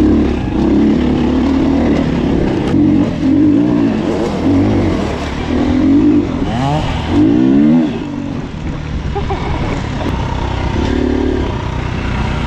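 Husqvarna TE300 two-stroke dirt bike engine under riding throttle, revs rising and falling, with quick rising sweeps about six to eight seconds in as it accelerates.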